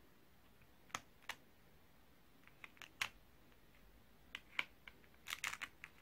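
Scattered sharp clicks and taps on a thin clear plastic candy mold as fingertips and nails press soft candy into it, with a quick run of clicks near the end.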